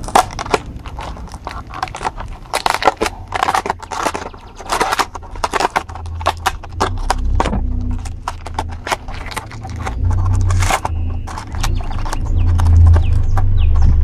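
Thin clear plastic clamshell container crackling and clicking as fingers work its snap-on lid open. A low rumble builds through the second half.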